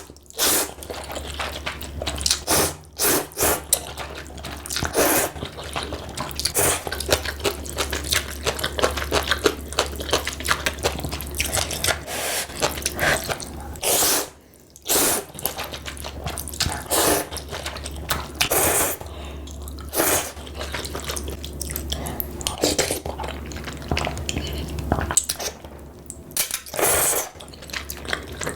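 Close-miked eating of spicy ramen noodles: a steady patter of wet chewing and lip-smacking clicks, broken every few seconds by a louder half-second slurp. A low steady hum runs underneath.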